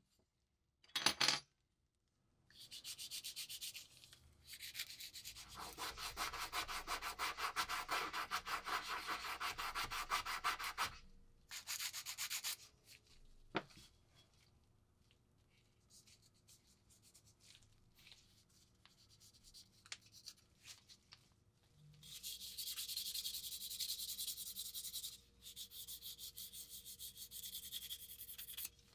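The small metal parts of a SOLO squeeze lighter being hand-sanded with a pink sanding stick: quick back-and-forth rubbing strokes. There is a long run in the first half and another near the end, with a quieter stretch between them that holds only small clicks.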